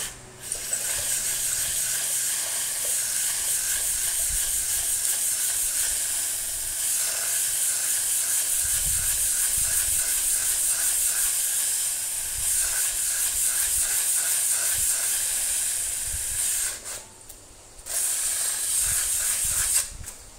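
Sandpaper rubbed back and forth on the metal shaft of a standing fan's motor, a steady dry rasping hiss made of quick strokes. It cleans the shaft so that a new bushing slides onto it easily. The rasping stops for about a second near the end.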